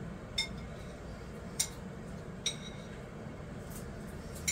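Four short, light clinks of something small and hard, spaced a second or so apart, over a steady low room hum.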